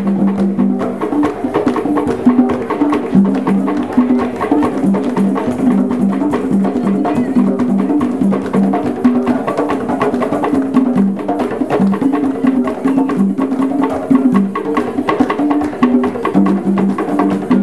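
East African drum ensemble of tall standing drums playing a fast, steady rhythm, with low drum notes stepping between two or three pitches in a repeating pattern, and people clapping along.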